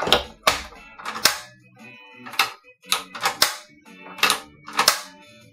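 Portable cassette gas stove's piezo igniter clicking repeatedly, about nine sharp clicks at uneven intervals, as the knob is turned again and again. The igniter sparks but the burner does not catch, even on a freshly fitted gas canister.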